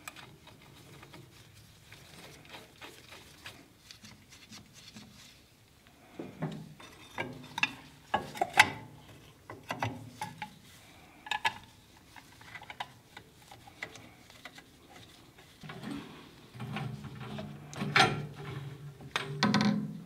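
Clicks, knocks and rubbing of metal parts being handled on a bandsaw blade sharpener as the grinding wheel and blade clamp are set up, with no motor running. The knocks come in scattered clusters, loudest around eight seconds in and again near the end.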